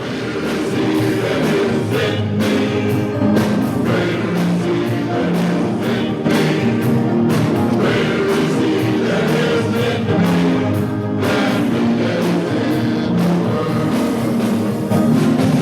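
Men's chorus singing a gospel song.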